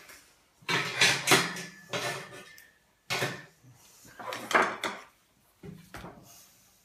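Rabbit skin and fur being ripped off the carcass after the skin was loosened with compressed air: a series of five or six short rasping tears.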